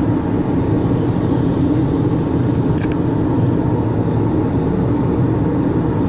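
Steady road and tyre noise with engine drone inside the cabin of a Hyundai car travelling at highway speed, the sound heaviest in the low range.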